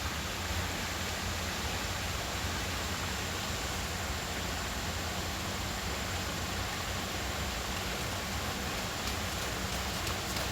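River water flowing, a steady even rush without breaks.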